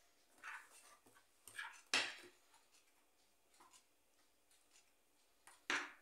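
Cookie dough of chocolate cake mix, egg and margarine being mixed in a glass bowl with a spoon and fingers: a few soft scrapes and rustles of the dry mix, with a sharper knock against the bowl about two seconds in and another near the end.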